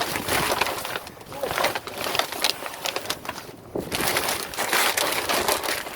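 Plastic grocery and bread bags crinkling and rustling as they are handled and shifted, a dense crackle with brief lulls about a second in and a little past halfway.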